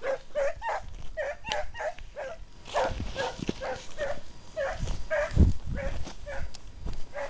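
Scent hounds baying in short, repeated yelping cries, about two to three a second, as they work a hare's trail. Brush rustles underneath, with a heavy low thump about five seconds in.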